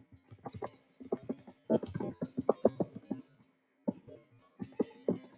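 Typing on a computer keyboard: an irregular run of keystroke clicks with a short pause a little past the middle.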